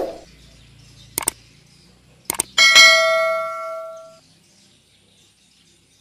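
Subscribe-button animation sound effect: a few sharp mouse clicks, then a bright bell ding that rings out and fades over about a second and a half. Faint bird chirps follow near the end.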